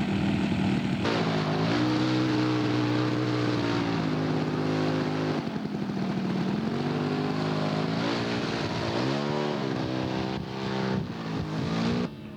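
Engine of a radio-controlled scale model airplane running, its pitch rising and falling several times as the throttle changes and the plane moves.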